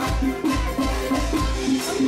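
Upbeat dance music played by a DJ over a sound system, with a heavy bass beat pulsing about three times a second under a repeating melody.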